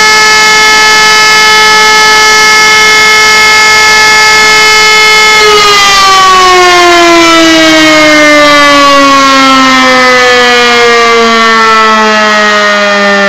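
E57 electromechanical motor siren sounding the fire-alarm signal, very loud. It holds a steady tone, then about five and a half seconds in starts winding down in a long, slowly falling glide as its rotor slows.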